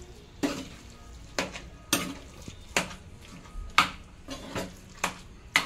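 A spoon stirring a mashed-potato and spice filling in a bowl, knocking against the bowl about nine times at uneven intervals of roughly half a second to a second.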